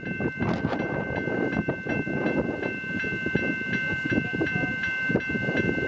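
Level-crossing warning bell ringing steadily, about three strikes a second, over the noise of a Comeng electric suburban train running through the crossing with rattling wheel and rail noise.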